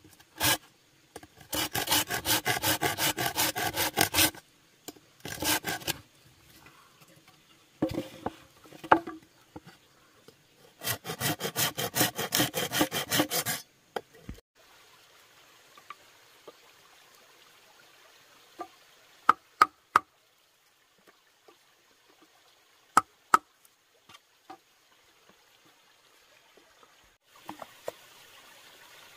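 A hand tool rasping or sawing wood in quick, even strokes, in three bursts over the first half, the longest about three seconds. After that come a few sharp taps.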